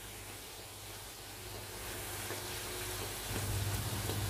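Bhatura deep-frying in hot oil in a kadai, a faint, steady sizzle. A low hum comes up about three seconds in.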